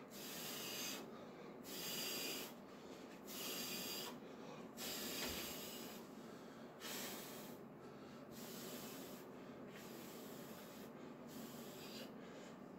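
A man taking sharp, hissing breaths in short bursts, roughly one a second, as he readies himself for a very heavy lift; the breaths grow weaker in the second half.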